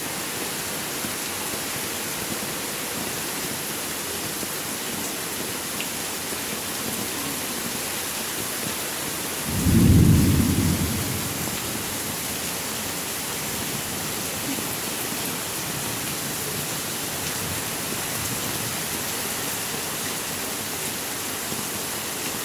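Heavy rain falling steadily, with one clap of thunder about ten seconds in that rumbles and fades over a couple of seconds.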